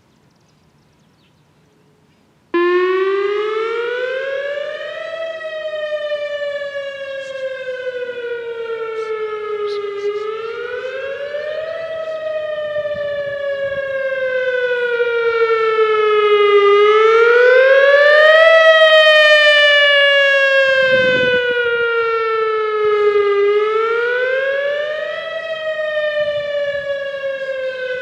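Whelen WPS-2000R electronic outdoor warning siren starting up about two and a half seconds in and sounding a wail: a rich tone with many overtones that rises for about two seconds and falls for about five, repeating roughly every seven seconds. It grows louder toward the middle and eases off again.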